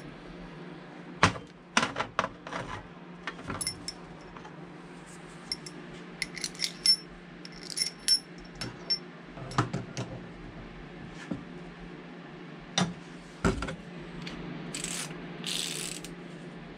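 Metal tools and diesel injector parts clinking and tapping as they are picked up and set down at the workbench, while a socket and wrench are fitted to an injector held in a vice to torque its nozzle nut. A steady low hum runs underneath, with a brief hiss about fifteen seconds in.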